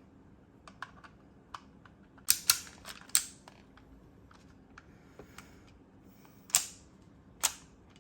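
Sharp clicks and snaps of hard plastic parts being handled and fitted. A few light ticks come first, then three loud snaps in quick succession about two to three seconds in, and two more near the end.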